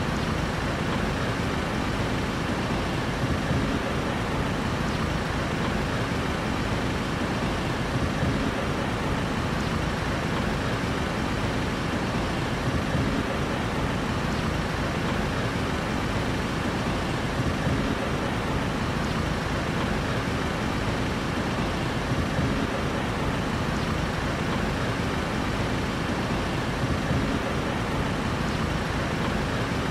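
Steady city street traffic noise: a constant low rumble of vehicles, with no single event standing out.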